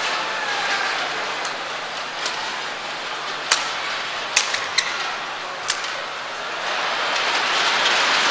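A badminton rally: rackets strike the shuttlecock with six sharp cracks, a little under a second apart, over the steady murmur of an arena crowd. The crowd noise swells near the end as the rally finishes.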